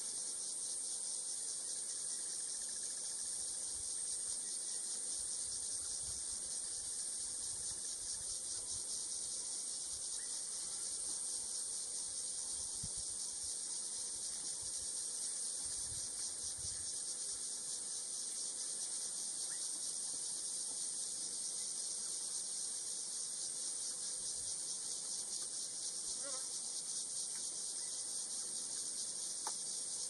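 Chorus of insects in the bush: a steady, shrill, high-pitched chirring with a fast, even pulse that never lets up.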